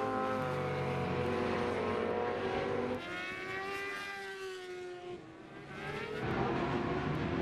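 Superbike racing motorcycles at high revs on track. The engines fade about three seconds in, while one bike's note rises and then falls as it goes by. The sound builds again near the end as more bikes come through.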